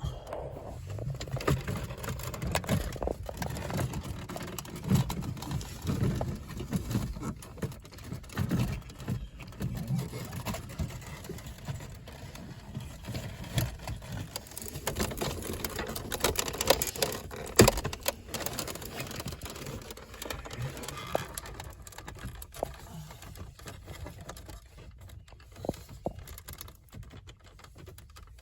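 Plastic car center console and interior trim being worked loose and handled: irregular clicks, taps and rattling knocks, with one sharper knock about two-thirds of the way through.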